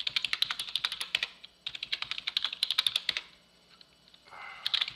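Fast typing on a computer keyboard: two quick runs of keystrokes over the first three seconds, a pause, then another run of keystrokes near the end.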